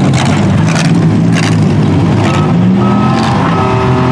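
Demolition derby cars' engines running and revving under load, with several sharp bangs of vehicles hitting. From about halfway through, a reversing alarm beeps on and off.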